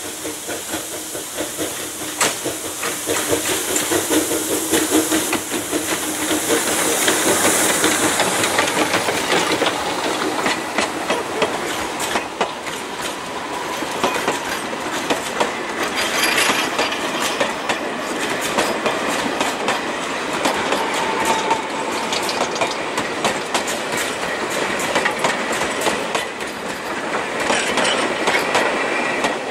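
Narrow-gauge steam locomotive passing close with steam hissing for the first several seconds, then its train of wooden freight wagons rolling by, the wheels clicking and clattering over the rail joints.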